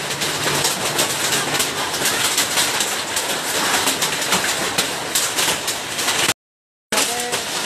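Heavy hail falling: a dense, steady clatter of many sharp hailstone impacts. The sound cuts out completely for about half a second near the end.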